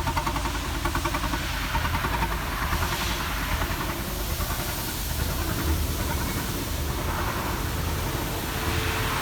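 Bentley's Audi 4.0-litre twin-turbo V8 running at idle with a steady pulsing beat and a hiss over it, while it is treated with carbon cleaner for a carbon-related misfire.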